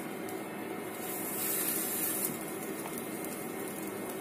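Buttered pav buns sizzling face-down on a hot iron tawa: a steady frying hiss that swells a little in the middle.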